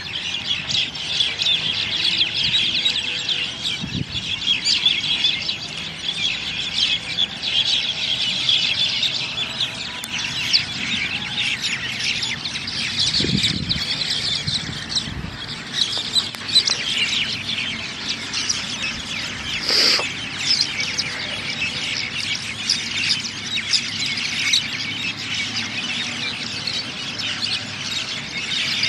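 A flock of birds calling at once: a continuous, dense chatter of many short, high chirps and squeals.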